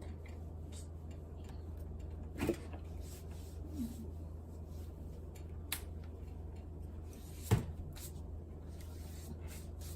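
A plastic laptop case being handled and pried apart: a few scattered clicks and knocks, the loudest about seven and a half seconds in, over a steady low hum.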